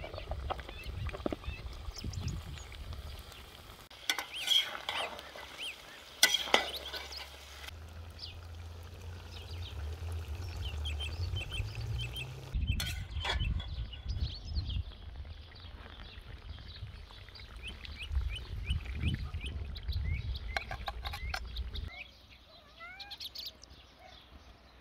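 Chicken and onions frying in a cast-iron cauldron over a wood fire, sizzling and bubbling, with a few sharp knocks of a utensil against the pot. Birds chirp and sing throughout. Near the end the cooking noise drops away and mostly birdsong is left.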